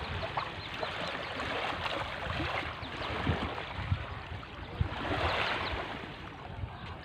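Waves washing and sloshing against the shore in a steady hiss of water, swelling louder about five seconds in, with a few low thumps.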